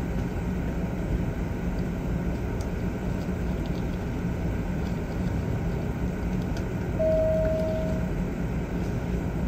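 Steady low hum and hiss of room machinery in a veterinary procedure room. About seven seconds in, a single steady tone sounds for about a second.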